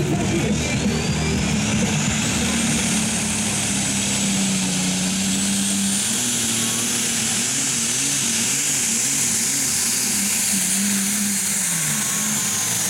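Light modified pulling tractor's engine at full power, pulling the sled. A high whine climbs over the first two seconds, holds, and falls away near the end, over a heavy engine note that wavers up and down in the second half.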